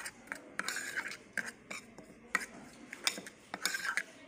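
Metal spoon stirring and scraping crushed red chili flakes in vinegar around a small bowl, giving irregular clinks and scrapes against the bowl.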